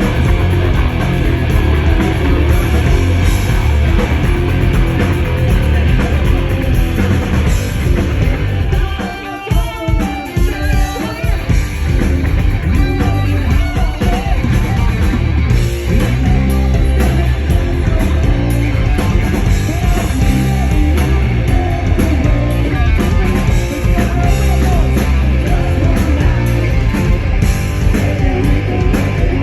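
Live hard rock band playing loud: distorted electric guitars over bass and drums. About nine seconds in, the bass and drums drop out briefly, leaving a lone guitar line, and the full band comes back in.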